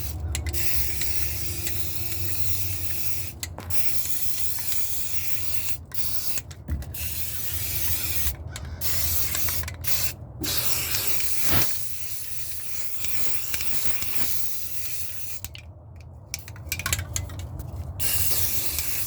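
Aerosol spray can of primer hissing in a run of bursts with short breaks between them, laying light coats of paint.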